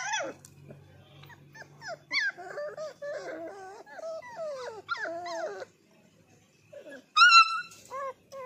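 Labrador retriever puppies whining and yelping. A loud high yelp opens it. Several puppies then whine at once in wavering, overlapping cries, and another loud yelp comes about seven seconds in, followed by two short ones.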